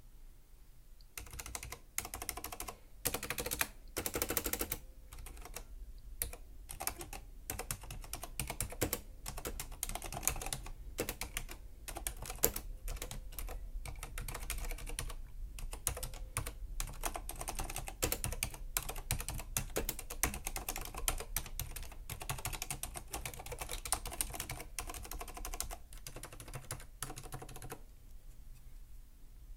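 Typing on a Corsair Strafe RGB mechanical keyboard with Cherry MX Silent switches: a quick, uneven run of key clicks starting about a second in, with a louder flurry of keystrokes around three to four seconds, tailing off near the end.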